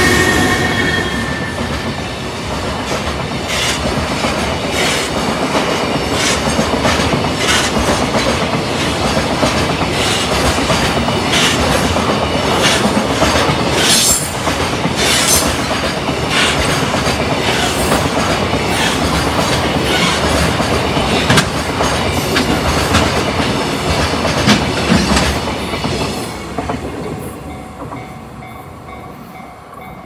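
JR Freight EH500 electric locomotive and its long rake of container wagons rolling past at a level crossing while accelerating, the wheels clattering steadily over the rail joints. The sound fades over the last few seconds as the end of the train moves away.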